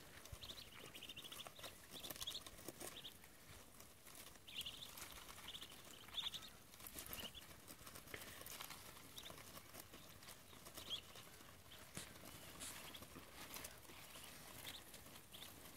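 Ducklings peeping in short, high calls that come in scattered bunches, with small clicks as their bills peck and tear at a cabbage leaf.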